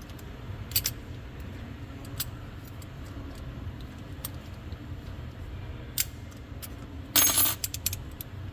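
Small home-made metal lock-picking tools clinking as they are handled: a few sharp separate clicks, then a short metallic clatter about seven seconds in, over a steady low hum.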